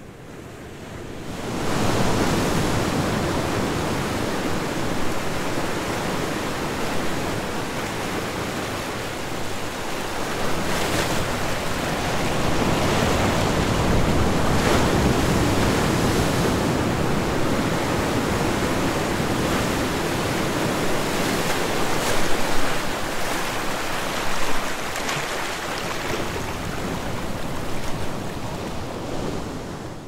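Ocean surf: waves breaking and washing up a beach, a steady rushing noise that swells up about two seconds in, rises and falls slowly, and fades out at the very end.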